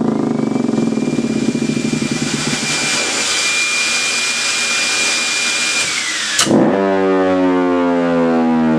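Pneumatic tube system blower blowing air through a Thunderbolt-style siren, a loud rough rush with a steady high whine. About six and a half seconds in there is a click, and the siren's tone starts and climbs steadily in pitch as it winds up.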